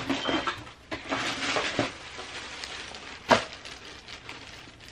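Paper shopping bag and tissue paper rustling and crinkling as they are handled, with a sharp knock about three seconds in.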